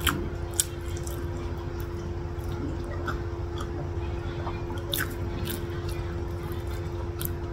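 Close-miked mouth sounds of someone eating satay: chewing with scattered sharp, wet clicks and smacks, over a steady low hum.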